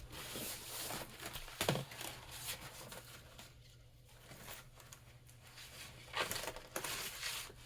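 Kit packaging being torn open and handled: rustling and crinkling, louder in two spells, at the start and again about six seconds in.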